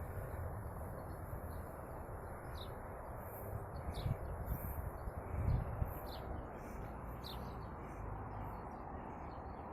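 Small birds chirping outdoors: short high chirps repeated every second or so. A low rumble sits underneath and swells briefly around the middle.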